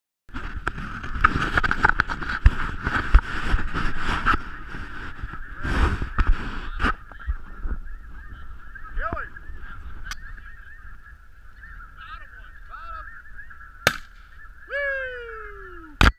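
A dense chorus of many snow geese calling, loudest in the first few seconds and then thinning out, with one long falling call near the end. A few sharp knocks are heard.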